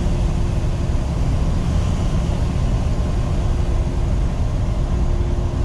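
Steady low rumble of an 18-wheeler's engine and tyres at highway cruising speed, heard inside the truck's cab, with a faint steady hum over it.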